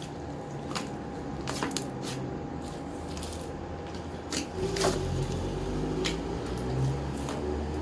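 A large mass of slime being kneaded and stretched by hand: wet squishing with scattered short pops and clicks at irregular intervals, over a steady low hum.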